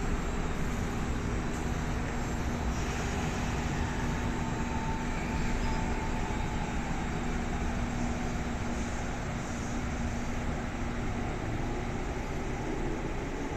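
Train rumbling steadily at the platform, with a low, even hum that fades out near the end.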